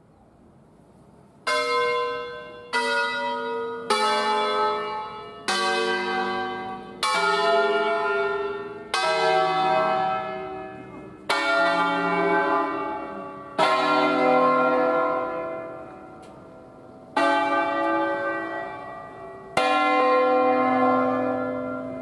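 Bronze church bells of an eight-bell concerto in C, cast by Luigi Cavadini in 1925, rung by hand in a melodic sequence. About a second and a half in, single strokes of different bells begin, about ten of them at uneven spacing, each ringing on and fading as the next sounds.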